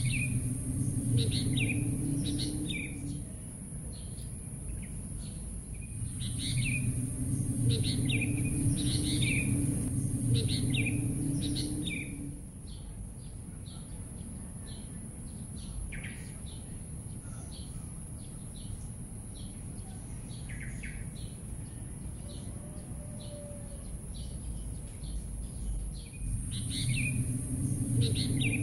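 Birds chirping in short, falling calls, repeated again and again. Beneath them is a low rumble with a steady high hiss, and both swell and fade several times.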